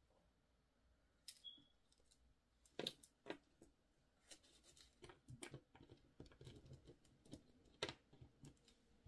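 Faint, scattered small clicks and taps of beads being picked up off the table, knocking together and being threaded onto stretch cord, with a cluster of quick clicks in the middle.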